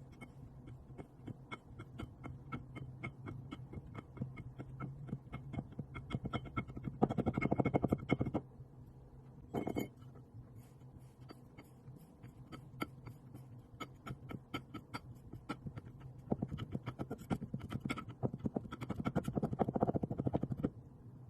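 Kinetic sand being cut and crumbling: a run of fine, soft crackles that thicken into denser, louder crunching about seven seconds in and again from about sixteen seconds in, with one short sharp scrape near ten seconds.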